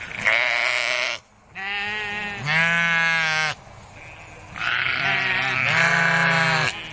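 Sheep bleating: three long, drawn-out bleats one after another, each lasting one to two seconds, with short pauses between them.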